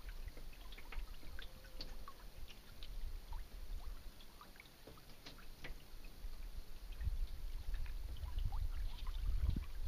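Water lapping and trickling against a sailing canoe's hull in small, scattered splashes, with a low rumble that builds again in the last few seconds.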